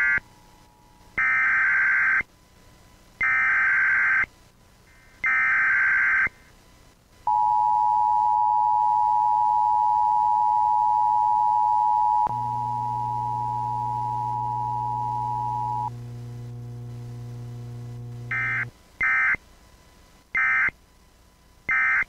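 Emergency Alert System test broadcast: three warbling data-header bursts of about a second each, then the steady two-tone attention signal. A few seconds in, the tone drops in level and a low buzzing hum joins it. The tone stops and the hum runs on alone before short end-of-message data bursts near the end, with no spoken message in between: a failed relay of the alert.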